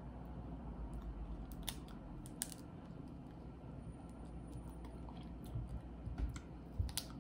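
A person chewing and biting seafood-boil food, with a few sharp clicks scattered through.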